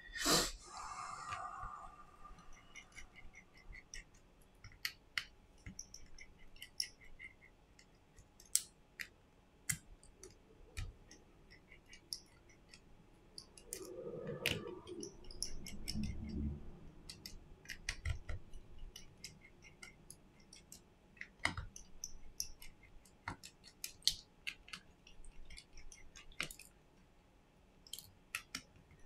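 Scattered small clicks and taps of a precision screwdriver and tiny screws against an opened smartphone's internal frame, with a sharper click at the start and a duller handling rub about halfway.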